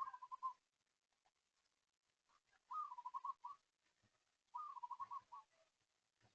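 A bird calling: a repeated whistled phrase, a short rising note followed by about five quick notes, given three times about two seconds apart.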